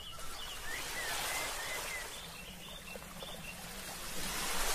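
Beach ambience: a steady wash of surf with a few faint, short bird calls over it.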